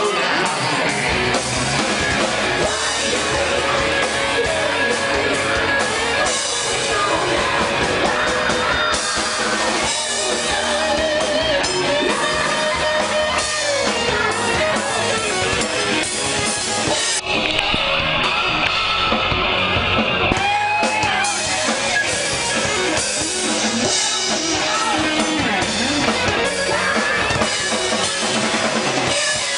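Live rock band playing: electric guitar and drum kit, loud and continuous.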